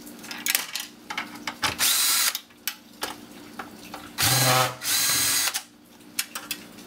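Cordless drill/driver running in short bursts, three times, as it backs screws out of the aluminium casing of a vehicle computer. Small clicks come between the bursts.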